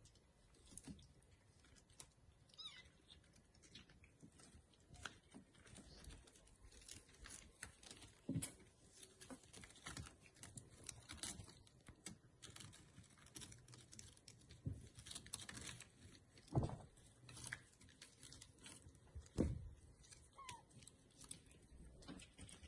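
Month-old Bengal kittens moving about and playing: scattered soft knocks and scuffles, two louder knocks in the second half, and an occasional faint high kitten mew.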